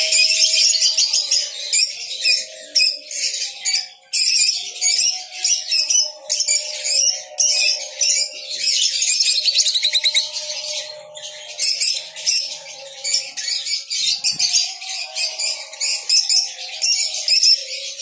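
A colony of caged lovebirds and other small parrots chattering together: many overlapping rapid, high chirps and squeaks with no pause.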